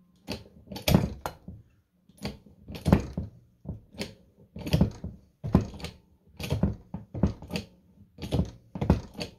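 A hand-pumped 5-ton hydraulic bearing puller being worked stroke by stroke while it draws a ball bearing off a motor shaft. It gives about a dozen short mechanical knocks, roughly one a second.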